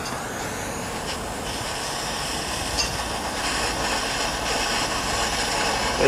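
Handheld propane torch flame burning with a steady hiss, growing slightly louder, as it heats a twisted copper cable splice so solder will flow into the joint.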